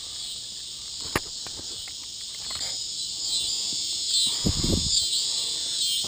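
A cicada buzzing loudly and steadily at close range, its high-pitched drone turning into a pulsing, wavering call about halfway through. A single sharp click about a second in and a brief low thump near the end.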